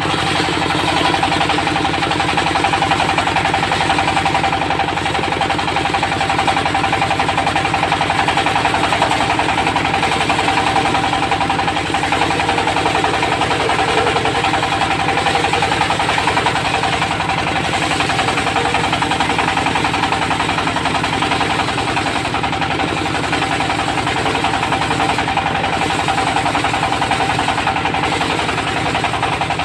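Stationary engine driving a portable circular sawbench, running steadily with a fast, even knocking pulse and a constant whine from the spinning blade.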